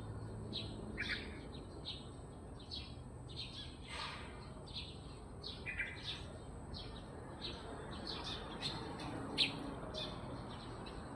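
Several small birds chirping, short high chirps coming a few times a second in an irregular overlapping pattern, one louder chirp near the end. A steady faint high-pitched hum runs underneath.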